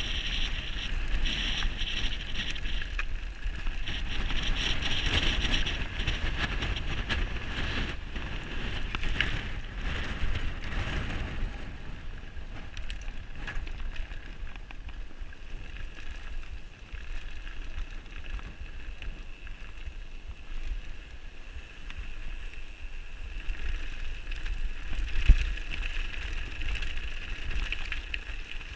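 Mountain bike riding fast downhill over a rough, stony trail: a steady rumble of wind on the microphone and tyres over gravel, with a high whir that comes and goes and one sharp knock from a bump near the end.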